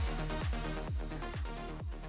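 Electronic dance music with a steady kick drum beat, about two beats a second, slowly getting quieter.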